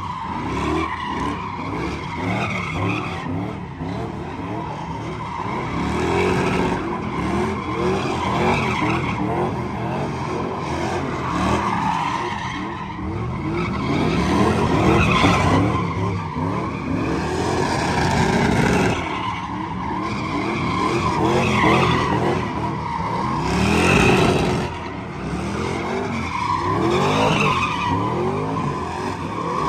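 Pickup trucks doing burnouts and donuts: engines revving up and down again and again while the rear tyres squeal and skid on the asphalt.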